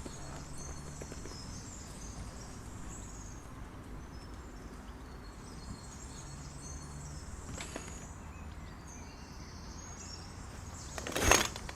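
Quiet outdoor countryside ambience: a steady low hiss with faint distant bird calls high up, and a brief louder rushing noise near the end.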